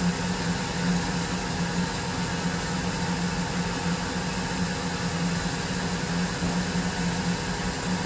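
Milling machine spindle turning a fly cutter at 750 RPM, fed slowly across a steel plate for a light skim cut: a steady low hum that swells and fades a little, over an even hiss.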